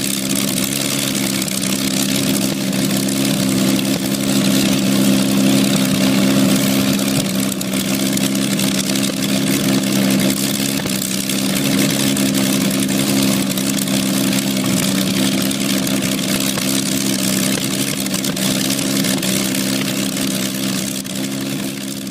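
Allison V-1710, a liquid-cooled, supercharged 28-litre V12 aero engine, running steadily on a trailer-mounted test stand, its speed holding even.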